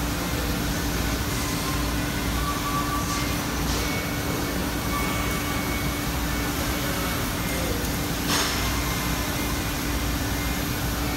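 Steady hum and rumble of running industrial machinery in a shop, with a short tap about eight seconds in.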